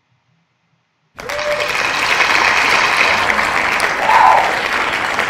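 Silence for about a second, then crowd applause starts suddenly and carries on steadily, with one brief louder call rising above it about four seconds in.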